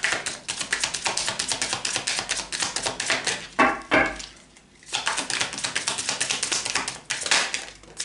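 A deck of Lenormand cards shuffled by hand: a fast, continuous patter of cards flicking against each other, with a short pause a little past four seconds in before the shuffling resumes.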